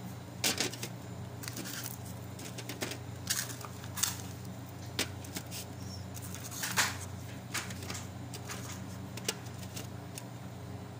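Hands handling folded sambusa pastries and setting them down on a glass plate: scattered light taps, clicks and rustles, over a steady low hum.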